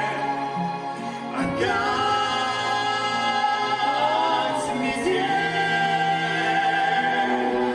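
A song performance: singing with long held notes over instrumental backing, the voice sliding in pitch about halfway through.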